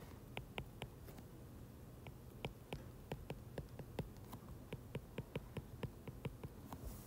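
Stylus tip tapping and clicking on a tablet's glass screen during handwriting: a faint, irregular string of light clicks, a few a second.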